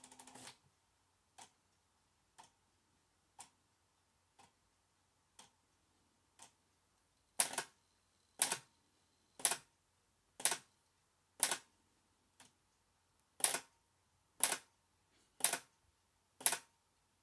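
TRS-80 four-pen printer clicking evenly about once a second, faint at first and much louder from about halfway through, as it keeps stepping the paper on line after line: it seems to be scrolling on without end.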